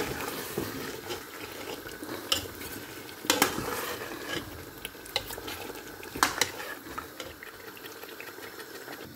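Metal spatula stirring chicken and potato curry in a metal pot, knocking and scraping against the pot with several sharp clinks, the loudest about three seconds in and about six seconds in, over a low sizzle of the curry frying.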